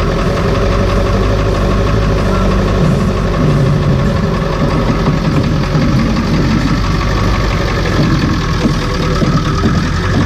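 Ford Bronco's 7.3 Powerstroke turbo-diesel V8 running steadily at idle while the truck creeps slowly forward, heard from directly underneath the vehicle.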